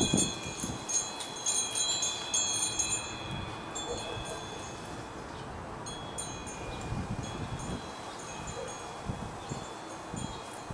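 High metallic chimes ringing, several tones overlapping and fading, busiest in the first three seconds and then ringing again more sparsely, with a few low thuds underneath.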